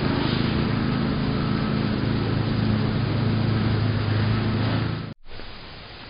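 Steady low mechanical hum over a noisy hiss, cut off abruptly about five seconds in, after which only a fainter hiss remains.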